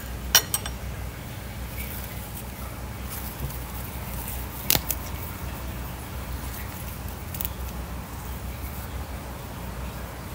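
Tabletop handling of food and dishes: two sharp clicks just after the start and a louder one about halfway through, like a utensil tapping a plate, with soft rustles of lettuce and herb leaves being handled over a steady low hum.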